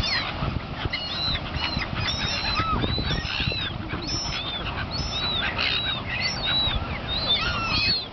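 A flock of gulls calling, many short, arched, squawking calls overlapping one another.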